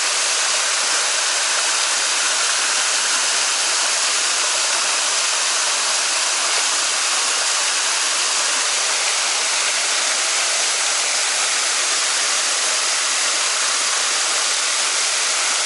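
Rushing mountain stream water: a steady, even rush of falling and flowing water.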